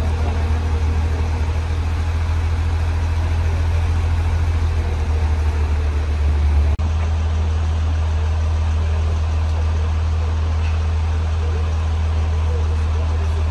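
Large vehicle engine idling, a steady low drone; the drone shifts abruptly about seven seconds in.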